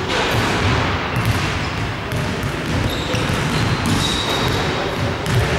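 Basketball bouncing on a hardwood court in a large gym, with murmuring voices and hall noise around it.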